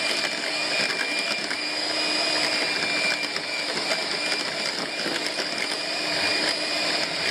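KitchenWorks electric hand mixer running at a steady speed, its beaters whirring through a thick banana mixture in a glass measuring jug.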